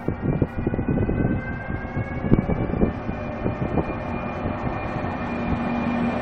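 E402 electric locomotive pulling away with Intercity coaches, its traction whine rising steadily in pitch as it accelerates, with wheels knocking over rail joints as it passes close by. A steady low hum sets in near the end.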